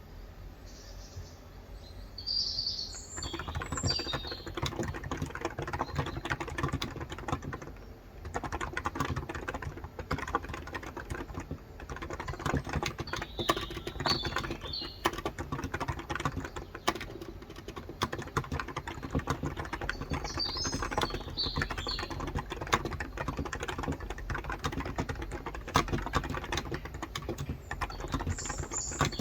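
Continuous typing on a Cox Endeavour electrostatic-capacitive (non-contact) tenkeyless keyboard with 35 g switches, starting about three seconds in with a couple of brief pauses. Small birds chirp outside now and then, in several short bursts.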